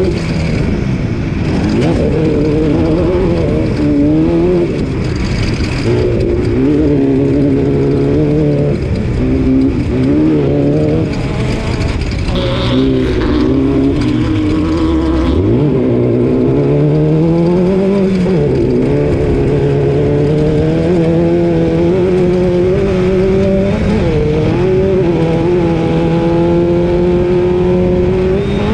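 Off-road race car's engine running hard, its pitch rising and falling again and again with throttle and gear changes. About halfway through the revs drop sharply and climb straight back, then hold at a steady high pitch near the end.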